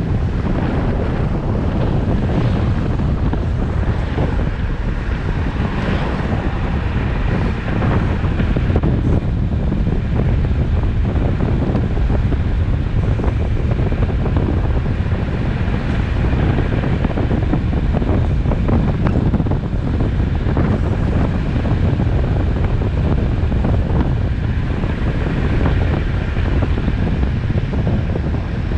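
Wind buffeting the microphone of a camera riding on a road bike descending at speed: a steady, loud rush, heaviest in the low end.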